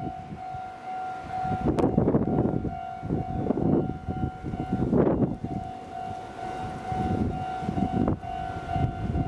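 Japanese railroad crossing warning bell ringing steadily, a single high tone. Irregular swells of low rumbling noise rise and fall under it.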